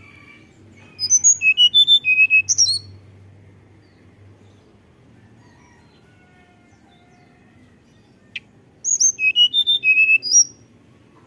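Hill blue flycatcher (tledekan gunung) singing two short phrases of rapid, high, sweet whistled notes with falling glides, each about a second and a half long and several seconds apart. A single sharp click comes just before the second phrase.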